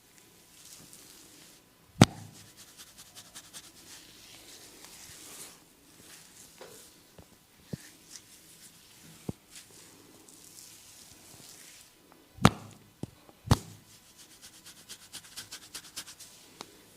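A barber's hands working a client's hair and scalp in a head massage: soft rubbing and scratching through the hair with fast runs of small ticks. Three loud sharp cracks stand out, one about two seconds in and two close together near the middle, about a second apart.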